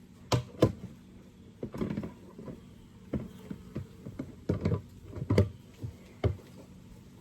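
Wooden frames of a Layens horizontal beehive knocking and clicking as they are lifted and handled: a string of irregular sharp knocks.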